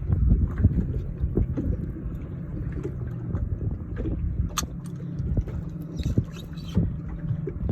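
Boat motor running with a low, steady hum over rumbling wind and water noise, with a sharp click about four and a half seconds in.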